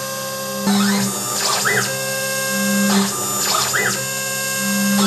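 Quick-CNC K6100a CNC router engraving acrylic: the spindle whines steadily while the axis stepper motors drive the head. A motor pitch rises, holds and falls about every two seconds, and a low hum switches on and off as the axes start and stop between moves.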